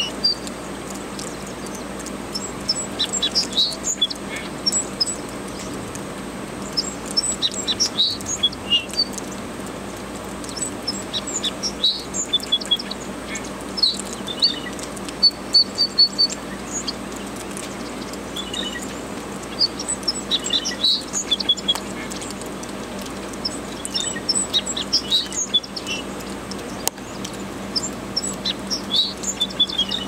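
A songbird singing, out of sight: bursts of quick, high chirps and warbling notes a few seconds long, with short pauses between them, repeated about seven times.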